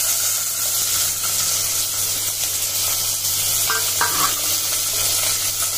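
Sliced onions, just tipped into hot ghee with whole spices, green chillies and garlic in a stainless steel pressure cooker, sizzling with a steady hiss.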